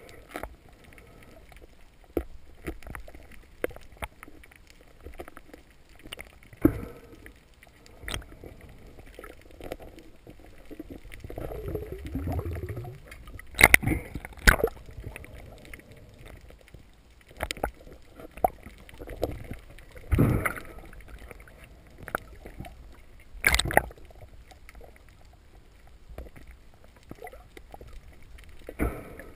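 Muffled underwater water noise heard through a diving camera's housing while swimming, with a longer swishing rush around the middle and several sharp knocks scattered through.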